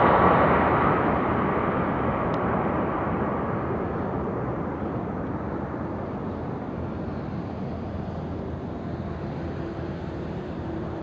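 Boeing 767-300 jet airliner's engines on landing: a broad rumble, loudest at the start and fading steadily as the aircraft flies past and moves away down the runway.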